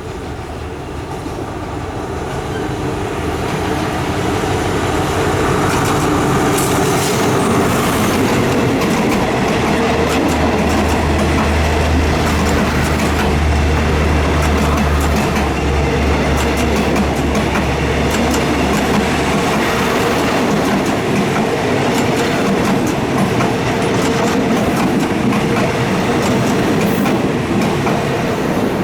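Alsthom AD24C diesel-electric locomotive hauling a passenger train into a station: the sound grows louder over the first few seconds, a low engine drone is strongest around the middle as the locomotive passes, and the carriages follow, rolling by with wheel clicks over the rail joints.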